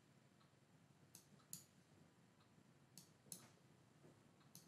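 Faint computer mouse clicks over near silence: two clicks about a second in, two more about three seconds in, and another near the end.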